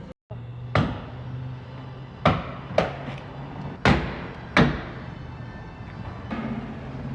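Five sharp snaps as a van door's plastic trim clips are pried loose from the metal door, with a steady low hum underneath.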